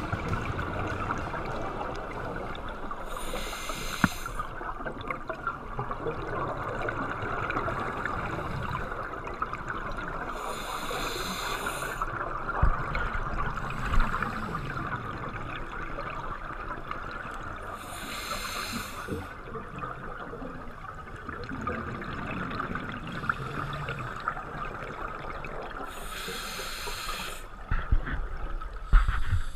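Underwater scuba breathing through a regulator: a steady watery hiss, broken every few seconds by a rush of exhaled bubbles lasting a second or so, with a few low knocks near the end.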